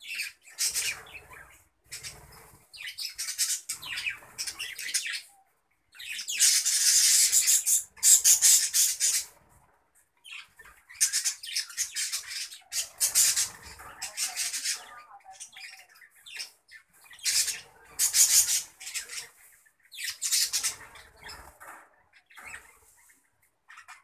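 A flock of budgerigars chattering and squawking in bursts of a second or two with short pauses between, loudest about a third of the way in.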